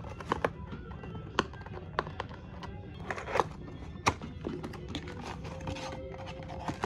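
A small cardboard box being handled and opened: a string of irregular sharp taps and clicks as the flap is pulled free and the lid lifted, over soft background music.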